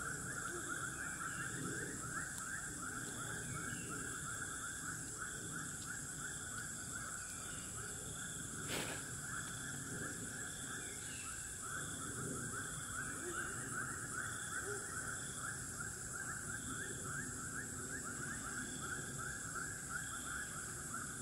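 Steady dusk chorus of small calling animals: a dense, unbroken trill of many rapid chirps, with a steady high hiss above it and faint short calls repeating about once a second. A single sharp click comes about nine seconds in.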